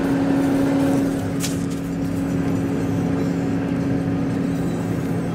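Car driving, heard from inside the cabin: a steady engine drone over even road noise.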